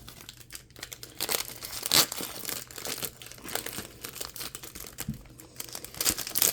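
Foil wrapper of a Bowman Draft trading-card pack being torn open and crinkled in the hands: a run of irregular crackles, loudest about two seconds in.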